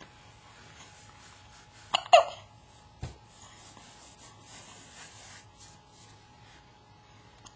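A baby hiccuping once, a sharp catch about two seconds in, followed a second later by a soft low thump.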